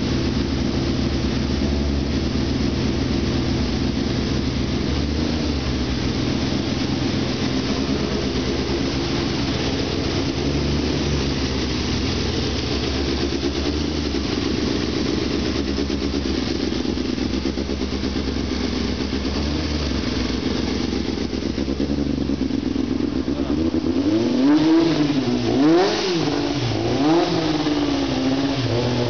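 Race car engine idling steadily, then revved in about three short throttle blips near the end.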